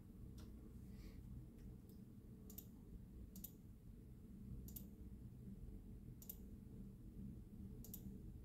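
Computer mouse clicking: five sharp single clicks about a second or so apart.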